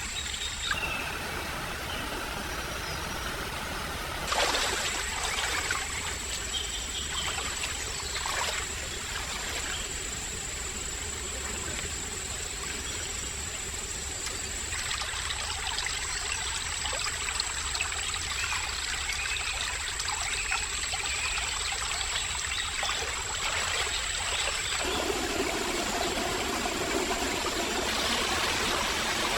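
Forest stream water trickling and running steadily.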